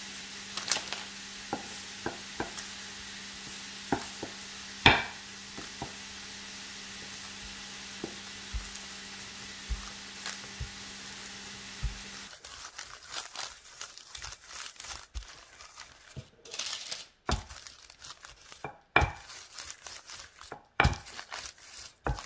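Diced lardons frying in a pan with a steady sizzle, a low steady hum and a few sharp taps. About twelve seconds in, this gives way to a wooden rolling pin rolling out dough on baking paper, with irregular rustles and crinkles of the paper.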